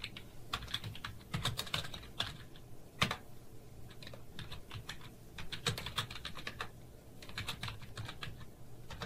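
Computer keyboard typing: irregular runs of keystrokes separated by short pauses, with one louder click about three seconds in.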